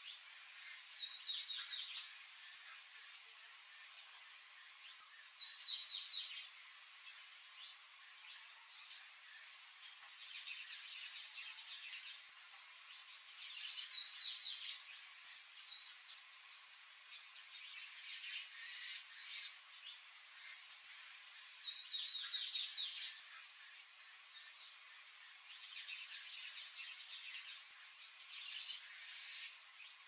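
Palm tanager singing: phrases of quick, high, squeaky up-and-down notes, about four loud bursts of two to three seconds each, with fainter phrases between them over a steady faint background hiss.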